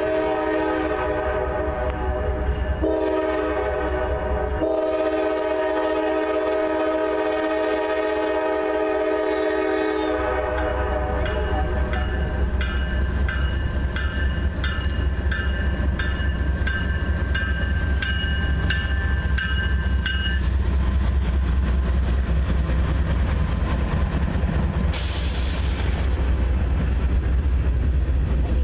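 Norfolk Southern diesel locomotive's air horn sounding a chord in three blasts, the last held about five seconds. A bell then rings at a steady rhythm for about ten seconds over the deep rumble of the passing locomotive and train, with a brief hiss about 25 seconds in.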